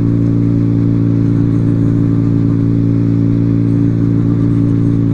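Benelli motorcycle with an aftermarket exhaust, cruising at a steady low speed. The engine holds one even note with no revving.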